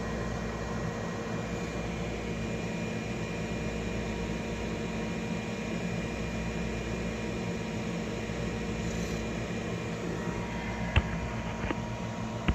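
3D printer running: a steady mechanical hum and whir from its fans and motors, with a sharp click near the end.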